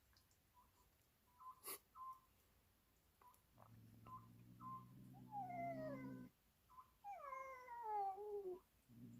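Cat meowing twice, each a long call falling in pitch, about five and seven seconds in. Between them come short faint high chirps and a low steady hum that starts and stops.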